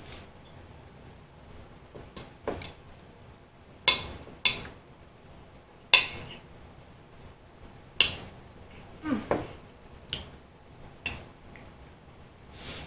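Metal fork clinking against ceramic dishes while food is picked up: about ten sharp, separate clinks with pauses between them.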